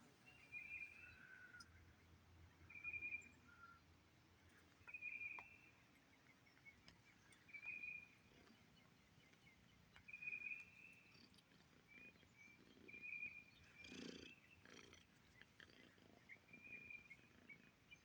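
Faint outdoor quiet with a short high bird call repeated about every two seconds, and a brief rustling noise about fourteen seconds in.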